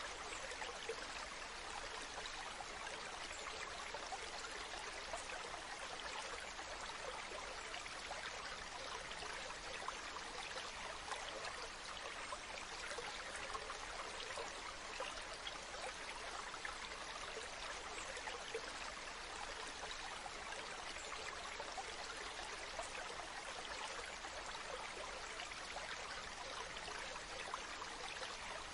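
Waterfall: water falling and rushing in a steady, even splash with no let-up.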